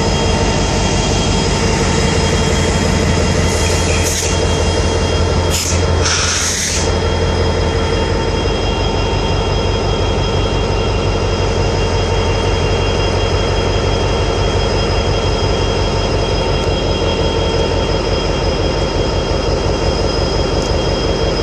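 A lashup of three diesel freight locomotives running loudly with a steady engine drone. A few short bursts of high hiss come about four to seven seconds in.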